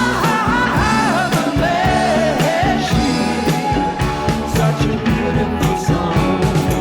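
Background rock song with a steady drum beat: a sung vocal line during the first few seconds, then held instrumental chords.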